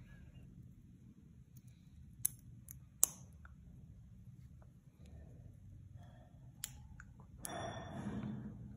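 Small plastic Lego bricks clicking as they are handled and pressed together by hand: two sharp clicks a few seconds in, then a few fainter ones, and a short rustling hiss near the end.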